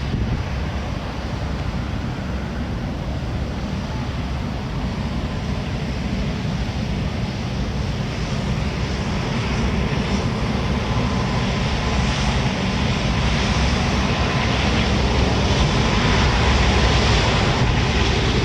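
Four-engine Airbus A380's jet engines, a steady rush of engine noise that grows slowly louder.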